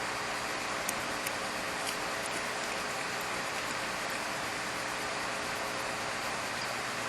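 Steady, even hiss of background noise, with a few faint ticks in the first two seconds.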